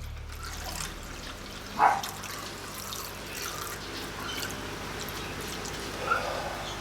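Milling machine running while cutting a keyway in a steel drive shaft: a steady hiss over a low hum, with a sharper clink about two seconds in and another near the end.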